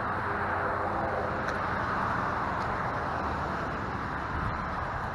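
Road traffic going by: a passing vehicle's tyre noise swells about two seconds in, then eases off.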